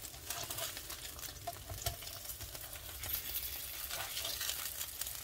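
Birria tacos frying on an electric griddle, crackling and sizzling steadily, with occasional taps and scrapes of a slotted spatula against the griddle surface.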